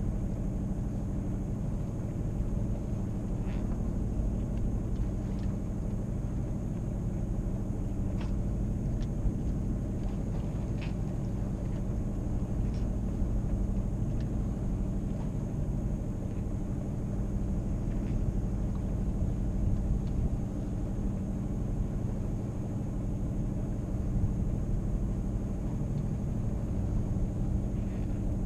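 Steady low rumble aboard a sailboat under way, with a drone of even low tones running underneath and a few faint ticks scattered through.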